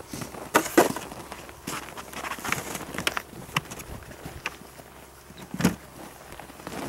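Irregular crunches and knocks of a person shifting and working on packed snow close to the microphone, with the loudest strokes about a second in and again near the end.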